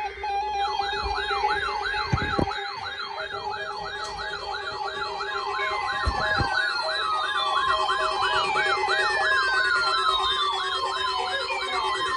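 Several NOAA weather alert radios sounding their alarms at once during a required weekly test: a swooping warble repeating two to three times a second, a wavering high tone and steady beeping tones, joined partway through by a long falling whistle and a steady alert tone.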